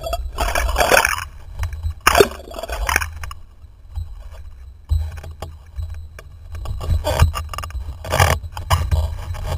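Water splashing and rushing over a mast-mounted camera as a windsurf sail dips into the sea, with loud bursts about half a second in, about two seconds in, and again from about seven seconds; a steady low rumble of wind on the microphone underneath.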